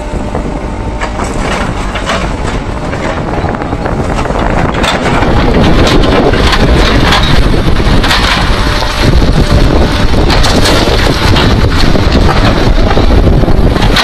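A diesel backhoe's engine is running while its bucket digs into broken stone and rubble, with rocks clattering and scraping against the steel bucket. The sound grows louder about five seconds in.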